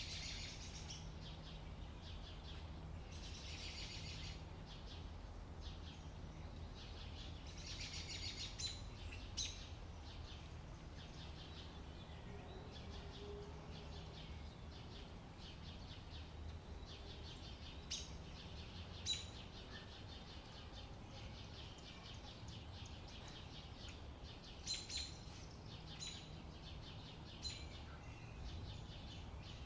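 Outdoor summer ambience of birds chirping. Dense second-long bursts of rapid high trilling come near the start, at about three seconds and at about eight seconds, followed by scattered short chirps. A faint steady low hum runs underneath.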